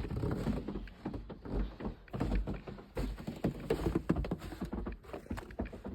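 Irregular soft taps and dull thuds, coming a few times a second at uneven spacing.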